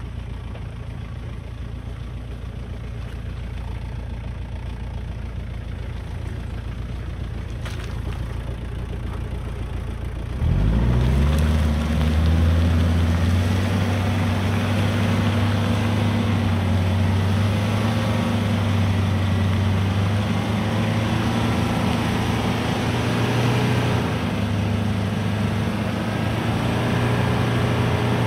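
1997 Jeep Cherokee XJ's 2.5 four-cylinder turbo diesel engine running low and steady, then about ten seconds in revving up suddenly and pulling hard under load as the Jeep drives up a muddy slope.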